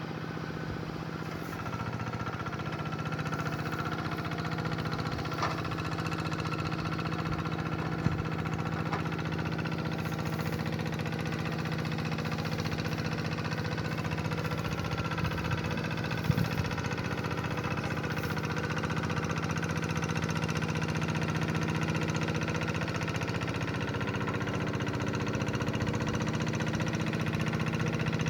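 Two-wheel hand tractor's engine running steadily while ploughing a rice paddy, with a couple of brief sharp knocks about eight and sixteen seconds in.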